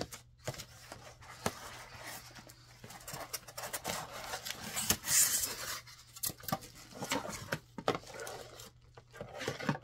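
Packaging being handled and unwrapped: a ceramic Scentsy warmer is lifted from a cardboard box and its plastic wrap pulled off. Rustling and crinkling with scattered clicks and knocks, loudest about halfway through.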